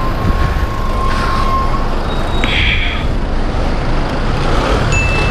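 Street traffic idling, with a city bus alongside: a steady low engine rumble, a short hiss about two and a half seconds in, and a thin steady tone that stops about two seconds in.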